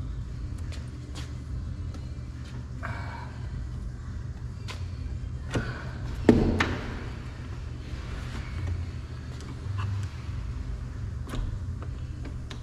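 Plastic retaining clips clicking and the door trim panel of a 2020 Hyundai Tucson knocking as it is pried loose, with one louder knock about six seconds in, over a steady low hum.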